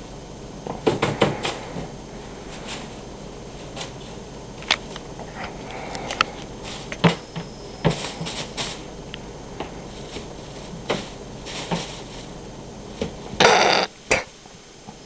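Irregular knocks and clatters of a litter box and its hood being jostled while a trapped cat is freed, with a louder, brief rush of noise near the end.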